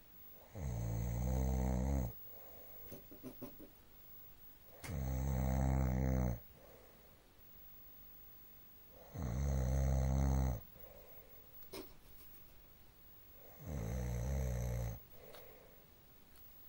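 A sleeping man snoring: four long, low snores, each about a second and a half, coming every four to five seconds, with quiet breathing between them.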